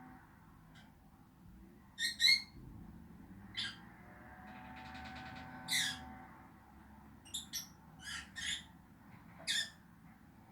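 Pet lovebirds calling: about nine short, sharp, high-pitched chirps and squawks at irregular intervals, the loudest a quick pair about two seconds in.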